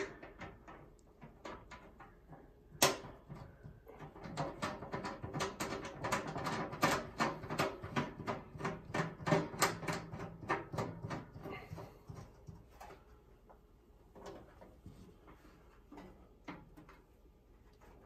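Sheet-metal clicks, knocks and rattles of a Comfort Zone garage heater and its ceiling mounting bracket as the heater is hung and the bracket's knob is turned by hand. One sharp knock comes about three seconds in; the clicking is dense for several seconds, then thins out.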